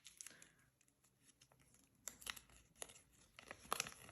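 Faint handling of a small plastic capsule toy and its wrapper: a few sharp plastic clicks and light crinkling, starting about two seconds in.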